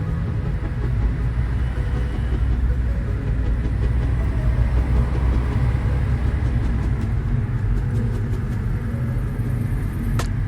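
Road and engine noise inside a moving car's cabin: a steady low rumble, with a brief click near the end.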